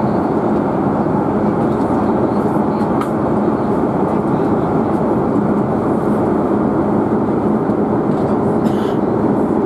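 Airliner cabin noise in flight: a loud, steady rushing drone from the engines and airflow, strongest in the low and middle range.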